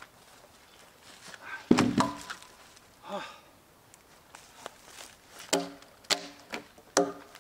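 A log dropped onto a stack of logs lands with a single hollow, ringing knock about two seconds in. From about five and a half seconds, a hatchet strikes the logs several times, each blow a sharp ringing wooden knock, roughly two a second.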